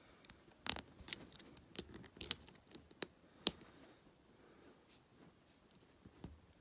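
Small plastic Lego pieces being handled, with a quick run of sharp clicks and taps, the loudest about three and a half seconds in, then quiet room tone.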